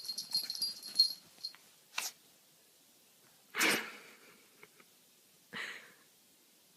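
Puppy sneezing three times: a small sneeze about two seconds in, the loudest one just past the middle, and a weaker one near the end. A metallic jingling comes before the sneezes, in the first second.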